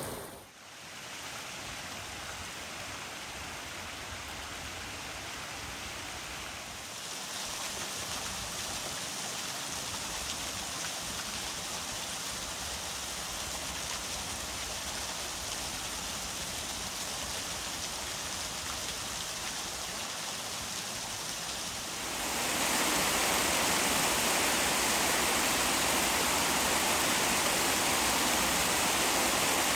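Running water, a brook or waterfall, making a steady rushing hiss. It changes character slightly about 7 seconds in and becomes louder and brighter about 22 seconds in.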